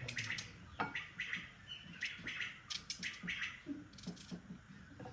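Birds chirping and calling in a rapid run of short calls, with a few sharp clicks mixed in.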